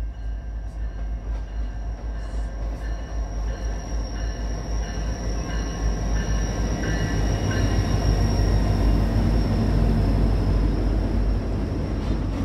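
BNSF diesel-electric freight locomotives passing at close range, their engine rumble growing louder as they draw level about eight seconds in. The rolling flatcars behind follow, with a thin high wheel squeal throughout.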